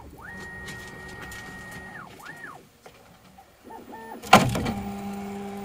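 Bambu Lab P1S 3D printer's motors whining as the print head moves during its self-test. One whine rises, holds for about two seconds and falls, then comes a shorter one and a few quick short moves. About four seconds in there is a loud knock, followed by a steady low hum.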